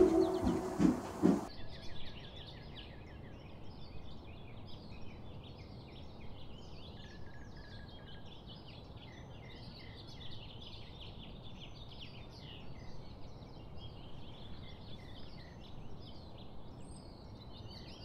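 Background music fading out in the first second or two, then a faint, busy chorus of many small birds chirping and singing over a low outdoor hiss.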